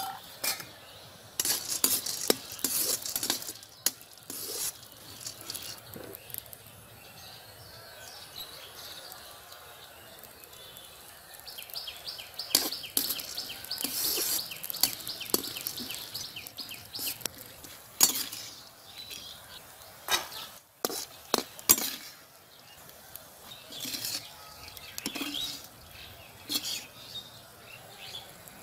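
A metal spatula stirring and scraping roasting peanuts around a metal kadai: irregular scrapes and clinks of metal on the pan, with the nuts rattling, busiest in a quick run of strokes near the middle.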